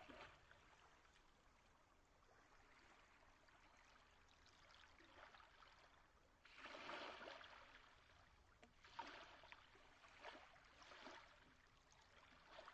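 Near silence, broken by a few faint swells of trickling water sound, the longest about six seconds in and shorter ones over the next few seconds.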